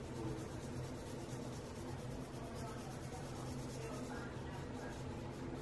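Felt nib of a colorless Copic alcohol blender marker rubbing in quick, faint scratchy strokes over colored pencil on paper, blending the pencil layers, over a steady low hum.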